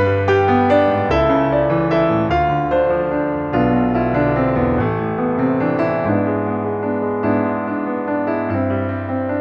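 Background music: a piano playing a slow melody with chords, notes struck about two or three a second.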